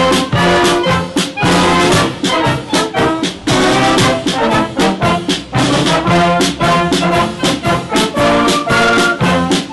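Brass band music with a steady quick beat, trombones and trumpets playing together.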